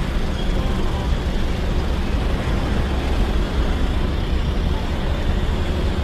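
Motorcycle engine running with a steady low rumble amid city street traffic.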